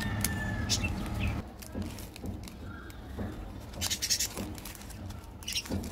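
Plastic chocolate-bar wrappers crinkling and rustling in the hands, in short bursts of crackle that gather in the second half. A low steady hum stops about a second and a half in.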